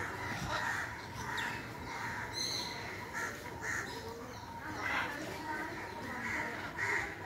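Macaws squawking: a run of short calls, one after another every half second or so.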